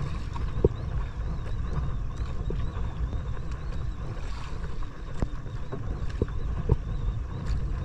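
Small fishing boat at sea: a steady low rumble of wind and boat noise on the microphone, with scattered light knocks throughout.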